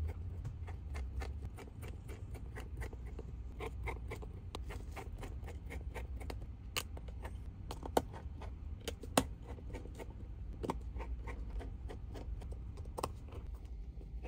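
Small screws being driven into a Samsung Galaxy A54's midframe with a precision screwdriver: a continual run of light ticks and scrapes, with a few sharper clicks in the second half.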